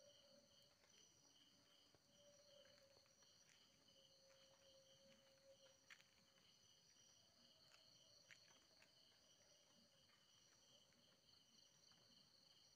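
Near silence outdoors at night: a faint insect chorus of crickets trilling steadily, with a faint low hum coming and going and a few soft ticks.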